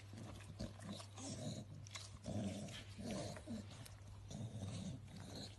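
A dog making short, low vocal sounds, about six times, over a steady low hum.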